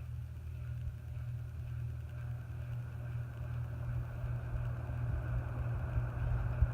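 Antique General Electric ceiling fan running, its motor humming steadily while the rush of air from the blades grows gradually louder as it is turned up on a variable speed control.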